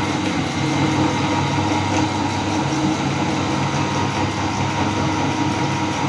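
Electric meat grinder motor running steadily with a constant hum, grinding chocolate bars.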